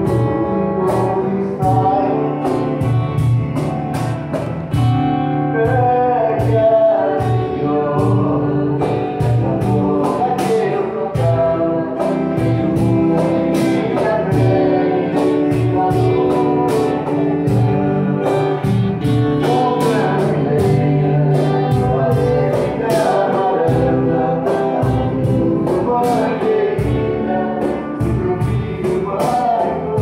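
Live acoustic band playing a song: strummed acoustic guitars and hand percussion keep a steady beat, with voices singing over them.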